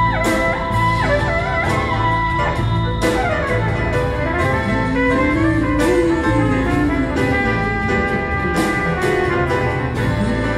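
Live jazz-tinged band: trumpet and a woman's voice carry the melody over double bass, piano and hand percussion. A high held note at the start slides down.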